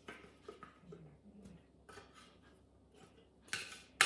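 A spatula scraping finely ground toasted coconut out of a stainless steel Thermomix mixing bowl in a series of short scratchy scrapes, with a sharp knock at the very end.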